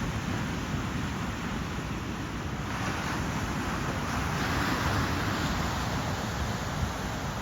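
Ocean surf: a steady wash of waves, swelling as a wave breaks and rushes in about three seconds in before easing off.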